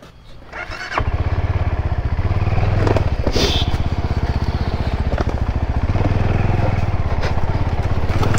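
Motorcycle engine running close by with a fast, even putter, coming in loudly about a second in and holding steady as the bike rolls forward.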